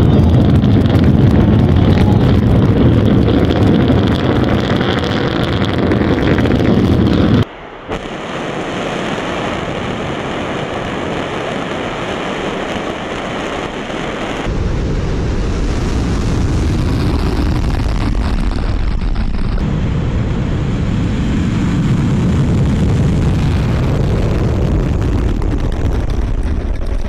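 Rocket launch roar. First a Long March 7A's engines are heard from a distance as it climbs. After a sudden cut about seven seconds in, a Soyuz-2.1b lifts off close to a pad camera: a steady rushing roar that grows deeper and louder about seven seconds later.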